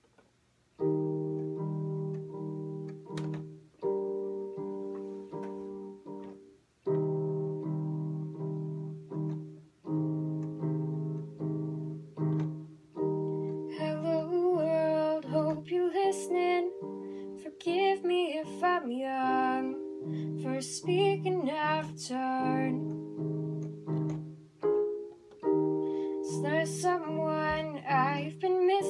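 Digital keyboard on a piano sound playing slow, held chords, struck every second or two, starting about a second in. About halfway through, a woman begins singing over the chords.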